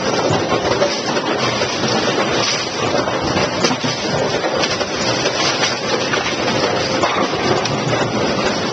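AMF 82-70 automatic pinsetters running: a loud, steady mechanical din full of rattling and clatter.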